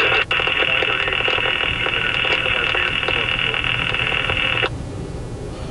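Railroad scanner radio opening up with a loud burst of static hiss, no clear voice in it, then cutting off abruptly after about four and a half seconds, like a squelch closing.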